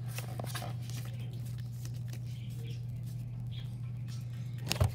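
Faint rustling and small ticks of Pokémon cards and foil booster-pack wrappers being handled on a table, over a steady low hum. A single sharp thump comes near the end.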